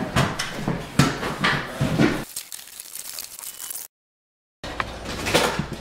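Irregular knocks and clatter of indoor renovation work and handheld-camera handling. The sound drops out completely for under a second, about four seconds in.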